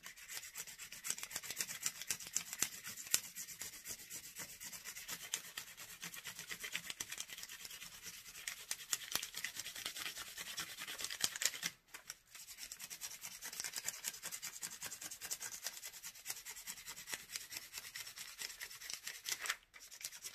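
A colored pencil rubbed rapidly back and forth over paper laid on a textured plastic piece, making a steady dry scratching of quick strokes. It pauses briefly about twelve seconds in and stops just before the end.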